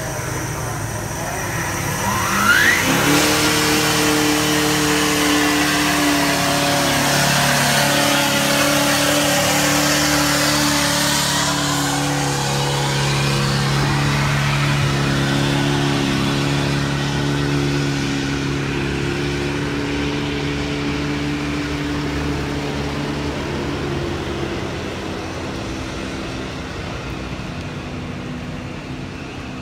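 Nissan Titan XD's Cummins 5.0-litre V8 turbodiesel revving up with a rising whine about two seconds in, then running hard under load as it drags a weight-transfer sled. The sound fades slowly as the truck moves away and drops off a few seconds before the end.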